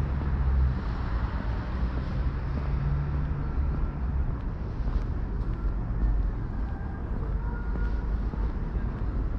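City road traffic: a steady low rumble of passing vehicles with tyre and engine noise, and a few faint high tones partway through.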